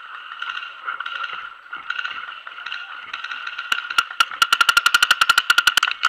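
A paintball marker firing, a few single shots and then a fast string of roughly a dozen shots a second, sharp pops over a steady high-pitched hum.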